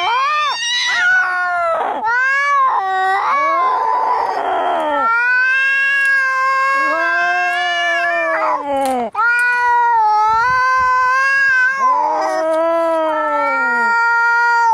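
Domestic cats caterwauling in a fight: long, drawn-out yowls that rise and fall in pitch, some overlapping, with a harsh hiss about four seconds in.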